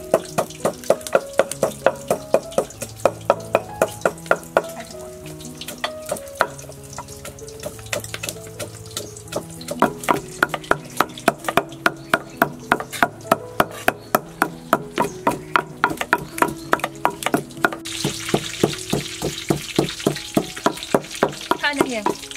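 Soft background music with held notes, over a quick run of regular knife chops on a wooden board, about three to four a second, which pauses for a few seconds and then resumes. A steady high hiss comes in near the end.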